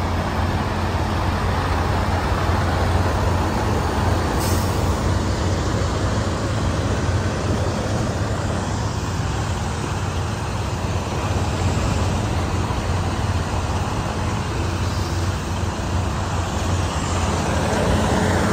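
Diesel engines of semi trucks running, a steady low rumble with traffic-like noise above it, and one short sharp sound about four and a half seconds in.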